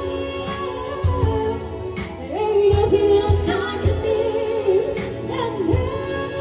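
Live band playing a pop song: a singer holding long notes over a steady beat.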